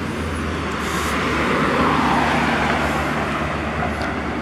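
Road traffic: a passing vehicle, its tyre and engine noise swelling from about a second in and fading toward the end, over a steady low engine hum.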